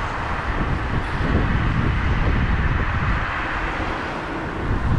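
Gale-force storm wind buffeting the microphone: a steady, fairly loud low rumble with a broad hiss above it.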